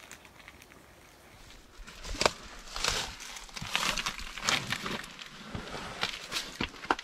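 Footsteps crunching and scuffing on dry sand and gravel, about two steps a second. They start about two seconds in, after a faint start.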